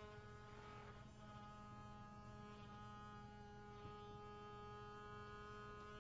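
Small vibrating robotic bug toy (a Nanobug) buzzing faintly and evenly, a steady electric hum made of several fixed tones.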